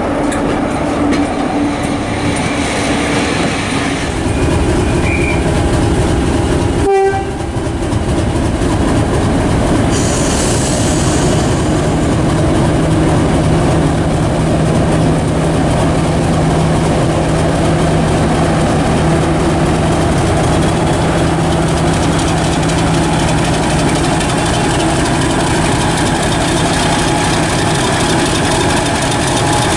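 Railway coaches rolling past close by with wheel clatter. After a sudden break about seven seconds in, a Class 50 diesel locomotive's English Electric 16-cylinder engine runs with a steady low hum as the locomotive moves past below and away.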